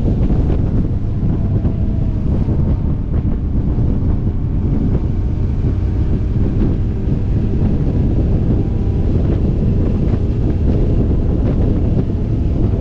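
Steady wind rush buffeting a helmet-mounted camera's microphone on a moving motorcycle, with the bike's engine running underneath.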